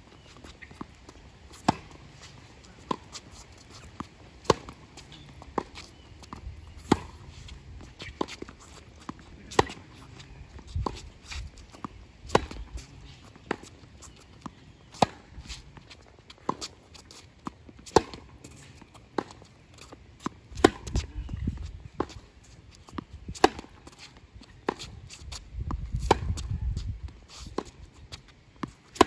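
Tennis rally on a hard court: a steady back-and-forth of sharp pops as the ball is struck by the rackets and bounces on the court, about one a second, the near player's hits louder than the far player's.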